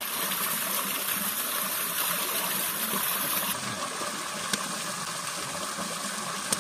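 Steady rush of a small waterfall and stream, with a hand splashing in the water for the first few seconds. Two short clicks come later.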